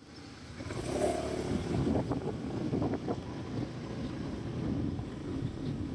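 Road traffic with wind rumbling on the microphone, and motor scooters running close by.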